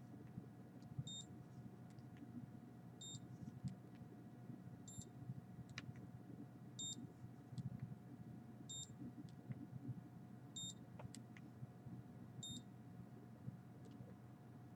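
A handheld electronic meter beeping faintly, one short high beep about every two seconds, over a low steady hum.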